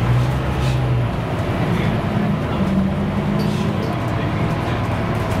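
Scania K310UB bus under way, heard from inside the cabin: the five-cylinder diesel engine drones under road noise. About two seconds in, the engine note climbs to a higher pitch.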